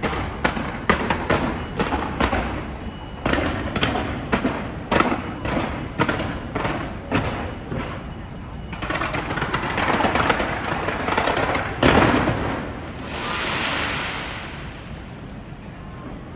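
Fireworks going off: a rapid string of sharp bangs for several seconds, then a dense crackling that builds to one big bang about twelve seconds in, followed by a hissing crackle that fades away.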